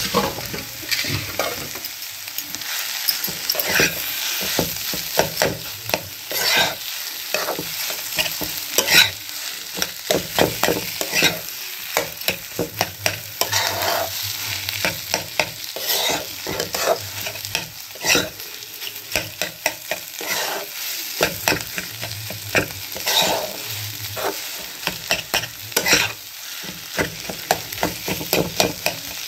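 Metal spatula scraping and knocking against a nonstick kadai as mashed potato is stirred into a frying vegetable paratha filling. There are irregular scrapes and taps over a steady frying hiss.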